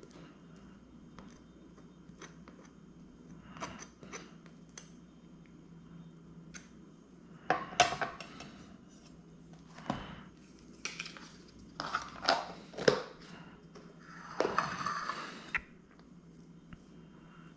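A table knife spreading cream cheese on a toasted bagel with faint soft scrapes. Then the metal knife clinks and knocks on a plastic cutting board in a few sharp clicks, and there is about a second of scraping near the end.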